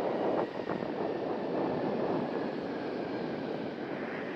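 Jet airliner engine noise: a steady rush that slowly fades.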